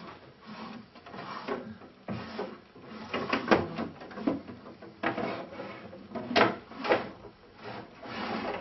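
Wooden cabinet door samples being handled and knocked against one another on a metal showroom display rack: an irregular string of clacks and bumps, the loudest about three and a half and six and a half seconds in.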